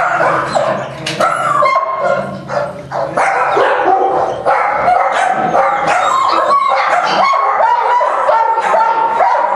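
Newborn puppies squealing and whimpering: a run of short, high-pitched cries that becomes a dense, continuous chorus about three seconds in.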